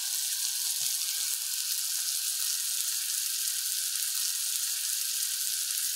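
Sea scallops searing in butter in a cast iron skillet: a steady, even sizzle.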